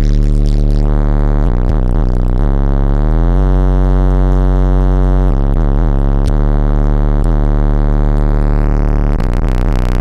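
Bass-heavy electronic music played at full power through a car audio system of six B2 Audio Rampage subwoofers on three Crossfire XS8K amplifiers, about 24,000 watts in all. Deep bass notes slide up and down in pitch, with a steady low rumble underneath.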